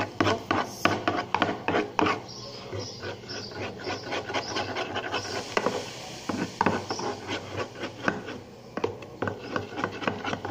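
Slime mixture being stirred and scraped in a container with a utensil, with irregular scraping and clicks, as the activator is worked in.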